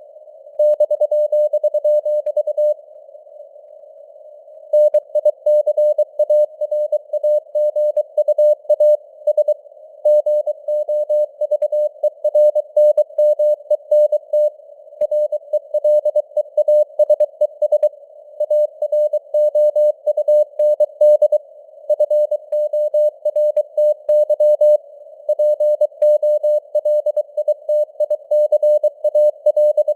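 Morse code (CW) at 23 words per minute: a single tone of about 600 Hz keyed on and off in dots and dashes, over a narrow band of simulated radio hiss, with signal strength that varies (simulated QSB fading). There is a pause of about two seconds around three seconds in, then steady sending resumes.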